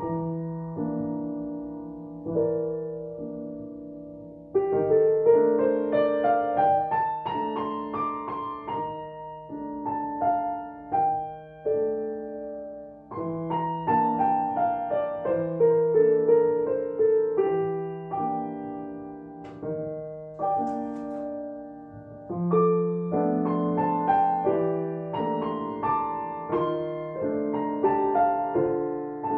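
A grand piano played four hands as a slow piano duet: a repeated low bass note and rocking chords underneath, with a louder melody above coming in about four seconds in and rising and falling in phrases.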